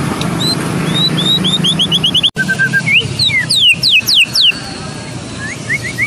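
White-rumped shama (murai batu Medan) singing loud clear whistles: a quickening run of short rising notes, then after a sudden break a few lower notes and a string of steep falling sweeps, with more rising notes near the end.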